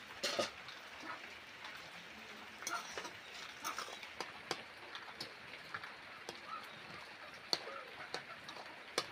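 Long steel spatula stirring and scraping through a wet, steaming mixture in a steel kadai, with irregular sharp clicks as it strikes the pan over a faint sizzle.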